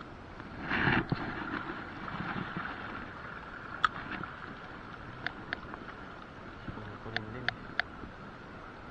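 Water lapping and wind around a small boat on open sea, with a louder rush of water about a second in. Several sharp, separate clicks follow: one near four seconds, two around five and a half, and three quick ones between seven and eight seconds.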